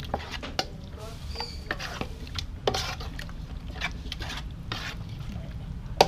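Metal spoon stirring a thick hor mok fish-curry mixture in an aluminium pot, with irregular scrapes and clinks against the pot. The mixture is being stirred steadily so that it thickens and turns sticky.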